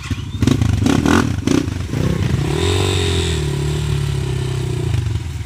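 250cc motocross bike engine being revved: a few sharp throttle bursts in the first two seconds, then a held rev that rises, holds and falls back to idle near the end.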